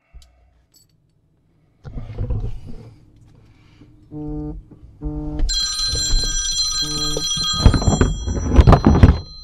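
A mobile phone ringing: a low pitched tone beeps in short even pulses about one and a half times a second, and a higher steady ringing tone joins in a little later. Loud rustling knocks come near the end.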